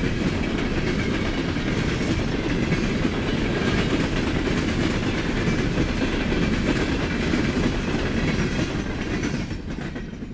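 Freight train's hopper cars rolling past, steel wheels running on the rails. The sound fades away near the end as the last car passes.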